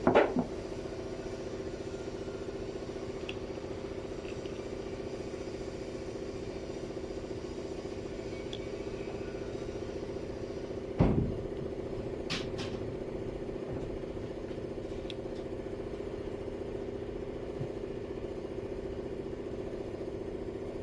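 A machine running steadily with an even hum. A single sharp knock comes about eleven seconds in, followed by a few light clicks.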